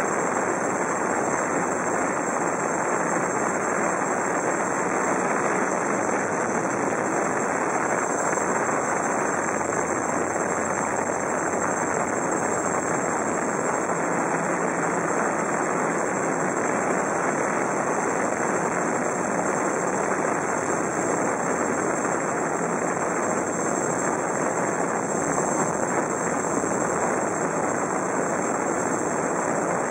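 GAUI QuadFlyer 330X quadcopter's electric motors and propellers in flight, heard from the camera it carries: a steady whir with a thin high whine above it.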